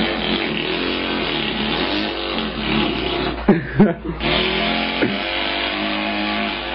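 A man's voice imitating an engine running, a steady buzzing drone that breaks off briefly with quick pitch swoops about three and a half seconds in, then picks up again.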